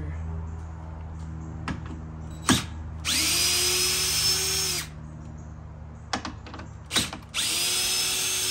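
Cordless drill spinning a deep-well socket to back out grille-support bolts, in two runs of a couple of seconds each. Each run rises to a steady whine and winds down at the end, with a few sharp clicks in between.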